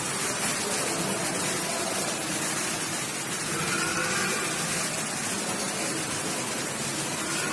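Water in an ornamental fountain pool churning and splashing, a steady rush of water.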